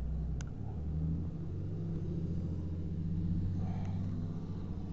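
An engine running steadily with a low hum, and one sharp click about half a second in.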